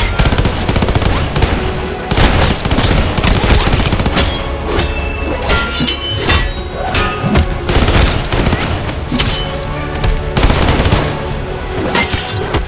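Designed fight sound effects, punches and hits, fired off in rapid succession over loud backing music with a steady bass.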